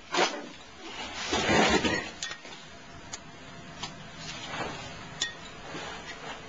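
Chopsticks clinking against a dish: four sharp clicks about a second apart, the last ringing briefly. Before them, near the start, a louder rustling scrape of food being moved.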